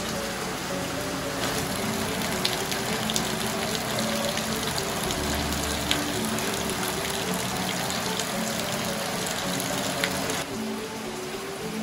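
Heavy rain pouring onto wet gravel ground, with individual drops ticking close by. The rain grows louder about a second in and falls back near the end. Soft background music with a slow, simple melody plays underneath.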